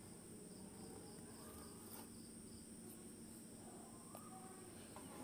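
Near silence: room tone with a faint steady high-pitched whine, and a small click near the end.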